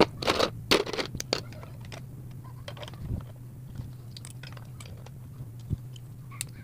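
Plastic Lego bricks clicking and clattering as hands handle them and fit them together. A run of sharp clacks comes in the first second or so, then sparser, softer clicks over a low steady hum.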